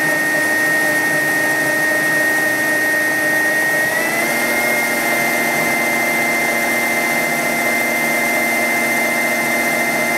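Milling machine's 600 W three-phase brushless motor whining steadily as a 3/16-inch drill bit bores at slow speed into a solid brass flywheel blank. The whine steps up slightly in pitch about four seconds in.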